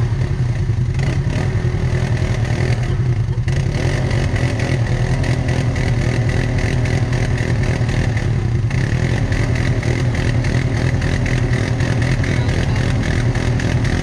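Four-wheeler engine running steadily at low speed on a rough trail, with a constant rattle from the vehicle.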